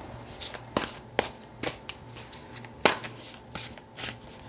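A deck of tarot cards being shuffled by hand: soft brushing and sliding of the cards, with a few sharp card snaps, the loudest about three seconds in.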